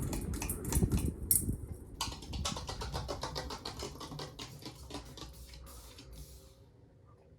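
2001 Hunter Original 2-amp five-blade ceiling fan coasting down just after being switched off from high speed: a rhythmic whoosh of the blades that slows and fades almost to silence.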